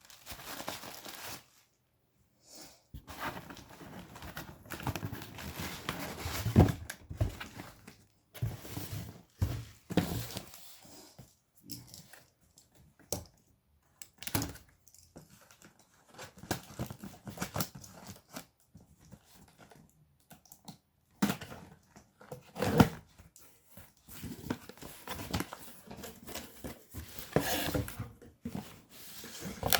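Packaging being handled and torn open: irregular tearing and crinkling rustles in bursts with short pauses, and a few sharp knocks.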